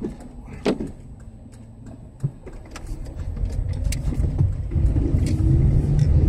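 Car engine and tyres on a wet road heard from inside the cabin: quiet at first with scattered light clicks, then a low rumble building steadily from about halfway as the car pulls away and gathers speed.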